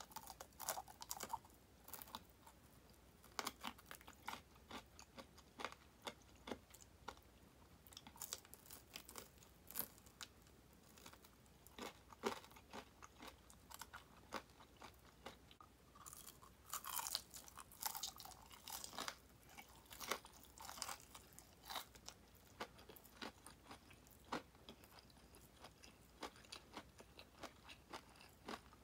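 Close-up chewing and crunching of crispy deep-fried chicken wing drumettes ('tulips'), with many irregular crisp crunches as the batter is bitten and chewed.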